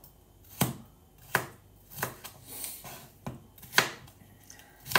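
Kitchen knife slicing through a yellow bell pepper, each stroke ending in a sharp knock of the blade on the cutting surface, about seven knocks at an uneven pace.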